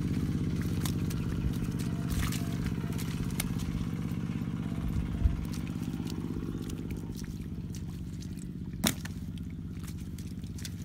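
A small engine running steadily at an even idle, slowly growing fainter, with scattered light clicks and two short knocks, one about five seconds in and a sharper one near nine seconds.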